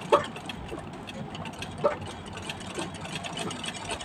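Classic straight-stitch treadle sewing machine worked slowly during free-motion embroidery, making a few single stitches. A sharp clack comes at the start, another about two seconds in, and a fainter one near three seconds, instead of a continuous run of stitching.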